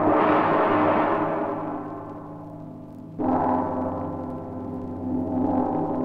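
Film score of sustained ringing metallic tones. The first fades over about three seconds, a new one is struck suddenly a little past three seconds, and the sound swells again near the end.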